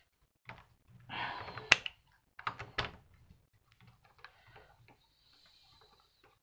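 Screwdriver unscrewing a small screw from the metal chassis of an Akai GX-747 reel-to-reel tape deck: short metallic scrapes and clicks as the blade seats and turns, with two sharp clicks about a second apart, then lighter ticking.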